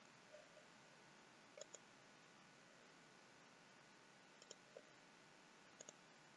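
Faint computer mouse button clicks, several of them quick double clicks, over near-silent room tone.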